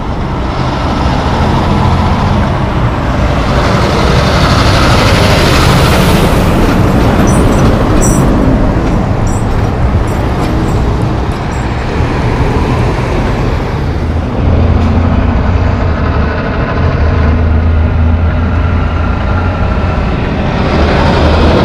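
Loaded logging trucks passing at close range: heavy diesel engines pulling under load with tyre and road noise. A run of sharp rattles and clanks comes about a third of the way through. A steadier, deeper engine drone dominates the second half as a truck pulls through the intersection.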